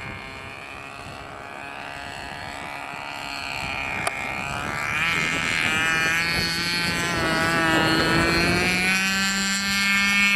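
Radio-controlled flying lawnmower model's motor and propeller whining, growing steadily louder as the model comes down low and close over the grass. Its pitch sags and then rises again near the end.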